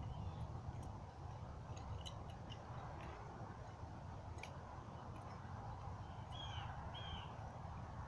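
Low wind rumble on the microphone, with faint, light metallic clicks from the bladechaku's chain and blades as they are swung, scattered through the first half. Two short high chirps come near the end.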